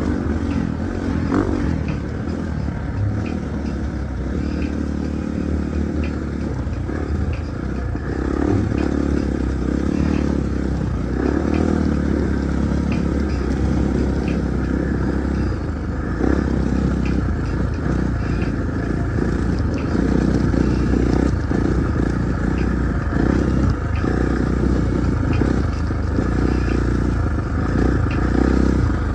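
Husqvarna 450's single-cylinder engine running steadily, with some scattered clatter.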